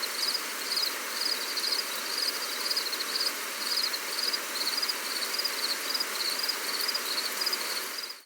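Steady rain hiss with an insect chirping high and regularly, about two chirps a second, over it. The whole sound cuts off suddenly at the end.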